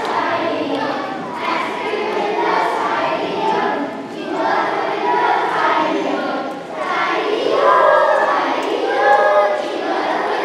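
A group of children singing together as they play a singing game in a gym, many voices in unison.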